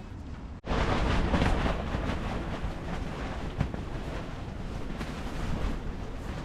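Strong gusting wind, heavy rumbling wind noise on the microphone, starting abruptly after a short cut about half a second in.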